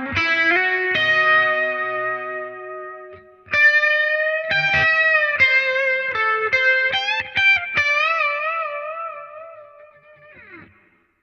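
Electric guitar played through a Line 6 Helix amp-modeler preset. Held notes give way to a picked lead line with string bends and wide vibrato, which rings out and fades away near the end.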